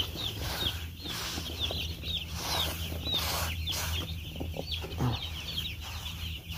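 A large flock of two-day-old broiler chicks peeping constantly, many short falling cheeps overlapping, over a steady low hum.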